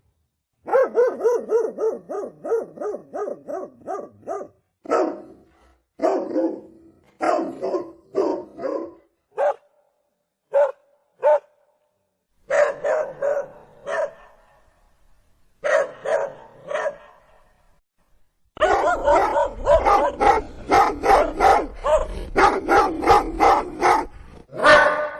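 Pomeranian barking in rapid runs of short, high-pitched barks, about four a second, with pauses between the runs. The barks come in one long unbroken run over the last several seconds, with a low rumble beneath it.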